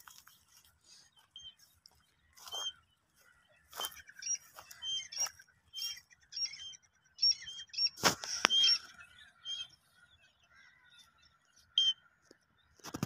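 Small birds giving short, high chirps, scattered irregularly and repeated many times, over rustling and a few sharp knocks; the loudest knock comes about eight seconds in.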